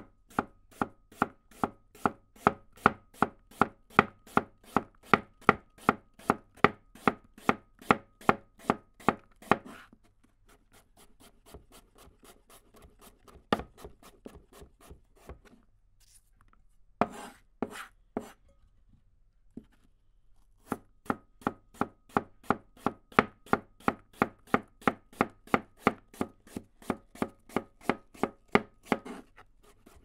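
Chef's knife slicing Granny Smith apples on a cutting board, in two runs of quick, even strokes of about three a second, each run lasting roughly ten seconds. A few scattered knocks fall in the pause between the runs.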